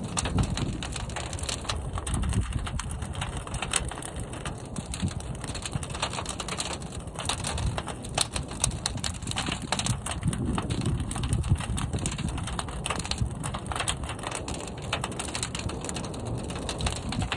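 Fire burning in a large kiln: a steady low rumble with dense, irregular crackling.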